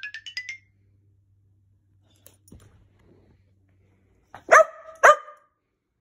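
The end of iMovie's 'Cartoon Ascending' sound effect, a quick rising run of notes, stops within the first second. Near the end a dog barks twice, about half a second apart.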